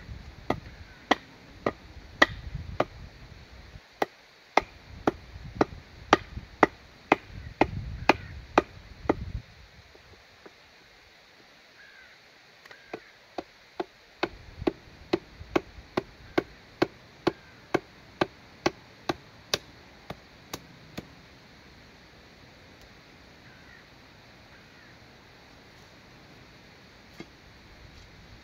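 A hammer striking the top of a cut olive branch, driving it into the soil as a stake. It comes as two runs of sharp, evenly spaced blows, about two a second, with a pause of a few seconds between them. Low wind rumble on the microphone runs through the first run.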